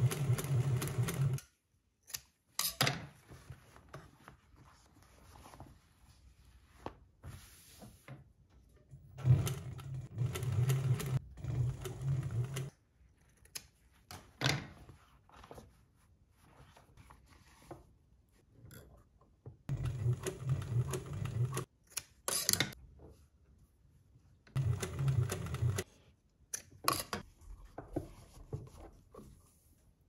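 Sewing machine stitching Alcantara in four short runs, each an even, fast needle rhythm that starts and stops abruptly. Between the runs come quieter stretches of fabric handling with a few sharp clicks.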